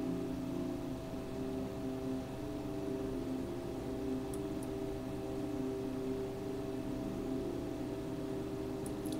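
Slow ambient drone music under a soft hiss: several sustained low tones held and slowly changing, with no beat. Two faint high ticks, about four and a half seconds in and again near the end.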